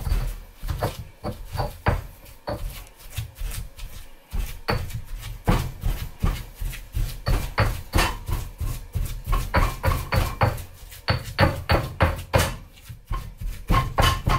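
Stone pestle pounding chive pesto (chives, Parmesan, cashews) in a stone mortar: repeated knocking strokes, about two to three a second, with a short pause about four seconds in.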